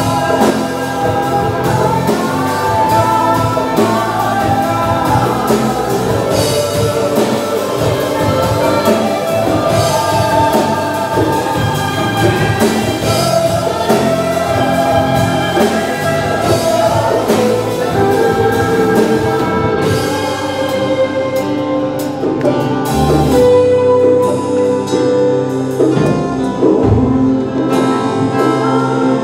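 Live worship band playing a praise song: women singing lead over electric and acoustic guitars, bass guitar, drums and keyboard.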